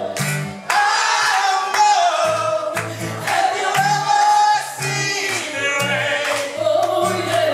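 A woman singing into a microphone, accompanied by a strummed acoustic guitar, in a live performance.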